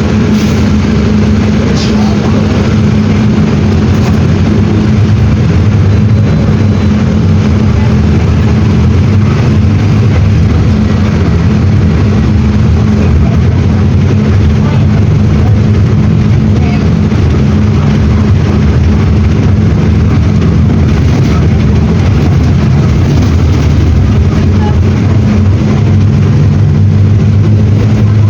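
Mercedes-Benz OM-924 LA four-cylinder inline diesel engine of an OF-1721 BlueTec 6 bus running with a steady, loud, low drone. Its pitch shifts slightly near the end.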